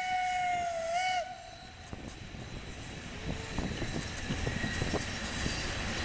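Steam whistle of the narrow-gauge steam locomotive Mh.1 blowing one steady note, which dips in pitch and cuts off about a second in. After it, the rattle and irregular knocking of the train's wheels and carriages running along the track.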